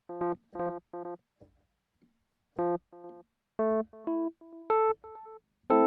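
Electric piano notes run through the Pulsar Echorec tape-echo emulation (modelled on a Binson Echorec 2), with stereo drift on: the opening notes repeat as echoes about three times a second and fade out. After a short pause, new notes are played near the middle, and each one is followed by its echoes.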